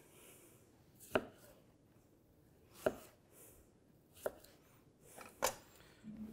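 Chef's knife cutting a lime into wedges, the blade knocking on a wooden chopping board four times about a second and a half apart.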